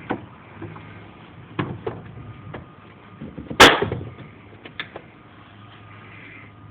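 Light rain falling in a steady, even hiss, broken by a few short sharp knocks, the loudest about three and a half seconds in.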